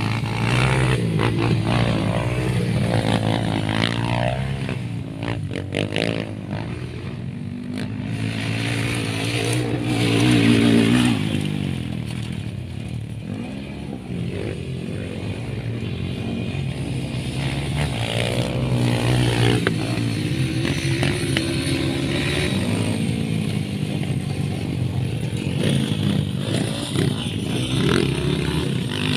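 Dirt bike engines running on an off-road practice track, revving up and easing off again and again as the bikes ride; loudest about ten seconds in.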